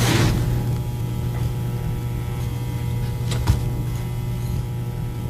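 Steady low hum with faint held tones above it, and a single soft click about three and a half seconds in.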